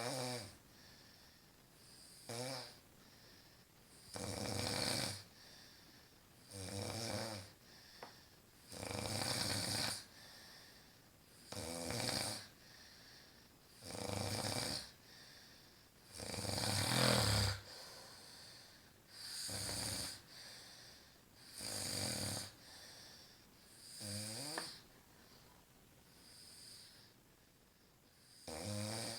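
A woman snoring in her sleep: a rasping snore roughly every two seconds, a few of them rising briefly in pitch.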